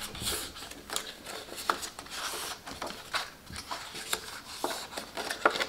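Cardstock being folded by hand and its creases pressed flat: soft, irregular paper rustling and rubbing with scattered light clicks and taps.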